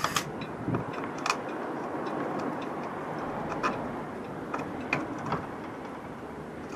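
Irregular sharp clicks and light knocks, about a dozen in a few seconds, from hand tools and fittings being worked on under a boat's stern.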